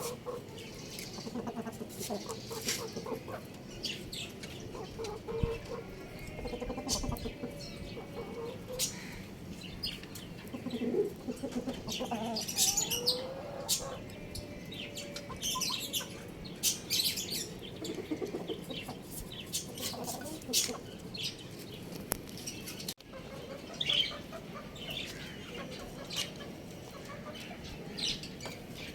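Chickens clucking at irregular intervals, with high chirps and short sharp clicks mixed in.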